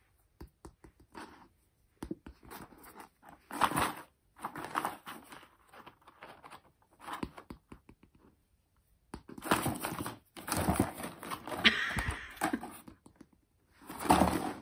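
Small dog shifting and digging in a cardboard box of chew sticks: irregular rustling, scraping and crinkling of cardboard with a few knocks. It is sparse at first and busiest in the last third.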